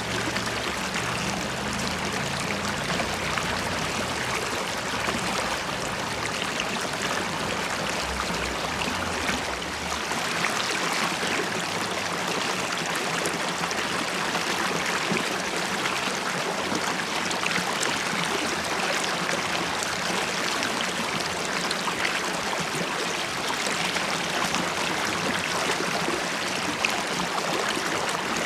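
River water flowing and bubbling over stones: a steady rushing with many small splashes and gurgles. A low rumble underneath stops about ten seconds in.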